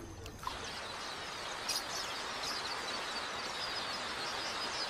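A huge flock of quelea calling: a dense, steady chorus of many small chirps.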